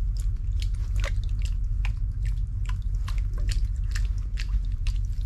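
Wet mud squelching and popping: irregular sharp clicks several times a second over a steady low rumble.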